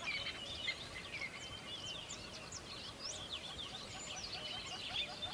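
A chorus of small birds chirping, many short high chirps and quick up-and-down whistles overlapping without pause.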